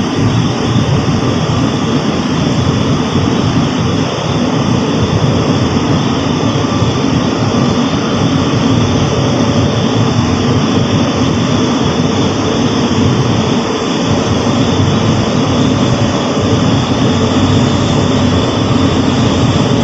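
Automatic car wash equipment heard from inside the car: a loud, steady rushing of water spray and machinery.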